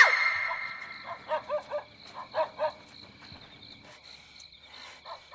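A dog barking: a quick run of short barks in the first few seconds and one more near the end, over a steady high chirring of crickets.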